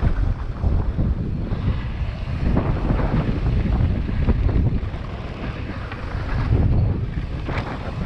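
Wind rushing over the microphone of a downhill mountain bike rider at speed, mixed with tyres rumbling on a dry dirt trail and the bike clattering over bumps and loose stones.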